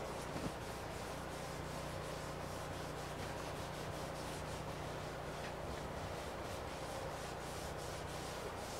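Cloth rag rubbing boiled linseed oil into a wooden axe handle: a run of soft, repeated wiping strokes over a faint steady hum.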